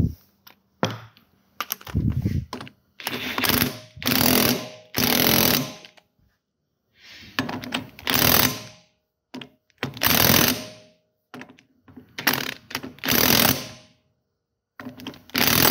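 Cordless impact wrench hammering a 30 mm castle axle nut onto the axle in about ten short bursts, snugging it down so the cotter pin hole can be lined up.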